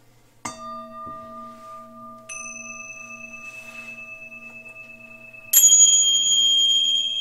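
Three struck bells of different pitch, each ringing on with a long, pure sustain: a low one about half a second in, a higher one about two seconds later, and the loudest and highest about five and a half seconds in. The lowest ringing tone pulses with a slow beat.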